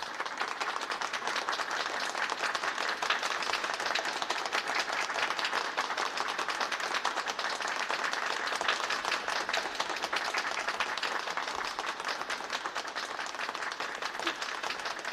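Audience applauding, a dense steady clapping that eases off slightly in the last few seconds.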